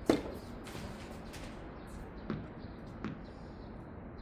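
A tennis ball struck sharply by a racket, followed by two fainter ball impacts a little over two seconds later and again under a second after that, as a rally goes on.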